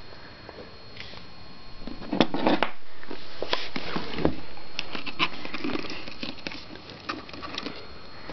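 Irregular clicks, knocks and scrapes of a hand tool working against an iPod's casing to break it, starting about two seconds in.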